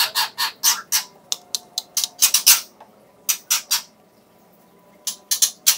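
Adult white-rumped shama giving a rapid series of short, harsh scolding calls, about four a second, pausing for about a second before a last cluster: an agitated parent's alarm at its chicks being taken from the nest.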